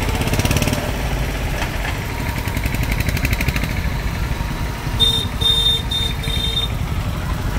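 Street traffic at close range: motorcycle, scooter and bus engines running at low speed. About five seconds in, a high electronic beep sounds four times in quick succession above the engines.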